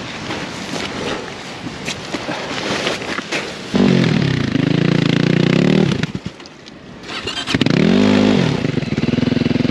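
Adventure motorcycle stuck in wet sand and beach stones, revved hard with its rear wheel spinning and flinging gravel as it is pushed. The first few seconds are a gritty clatter of stones. About four seconds in the engine revs up, drops back for a moment, and revs up again near the end.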